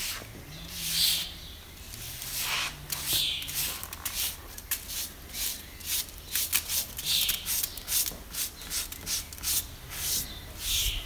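Brass-bristled detail brush scrubbing over carved timber, a run of short scratchy strokes that come faster in the second half. It is lifting old varnish that paint stripper has softened to a mush.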